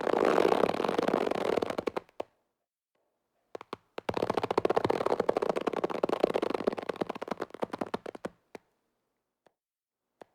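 Green slime being squeezed and worked by hand, with wet crackling and popping of trapped air, in two stretches separated by a short pause of about a second and a half.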